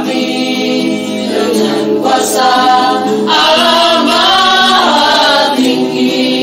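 A group of voices singing a worship song together, held melodic notes rising and falling, led by a singer on a microphone.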